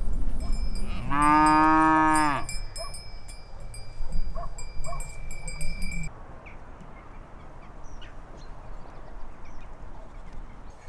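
A cow mooing once, a single long call lasting about a second and a half.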